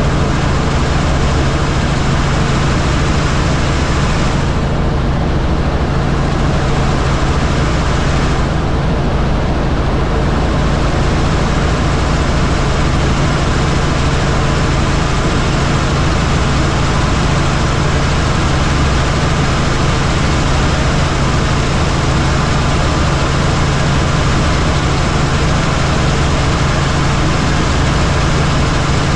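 Helicopter in flight: steady, loud rotor and engine noise with a low hum.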